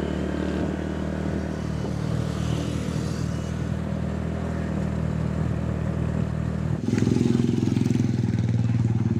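Motorcycle engine of a tricycle (motorcycle with sidecar) running steadily on the road. About seven seconds in, it cuts abruptly to a louder, closer engine sound with a quick, even pulse.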